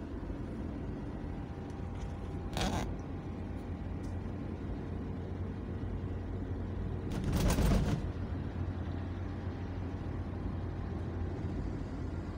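Steady low rumble of a car driving on a smooth multi-lane road, heard from inside the cabin: engine and tyre noise. Two brief louder rushes of noise stand out, one about two and a half seconds in and a stronger one about seven and a half seconds in.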